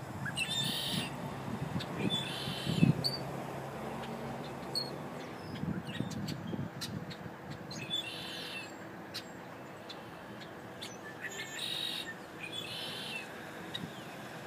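A bird calling outdoors: five short calls, two in the first three seconds, one about eight seconds in, and two close together near the end. Under them is a low, steady background rumble.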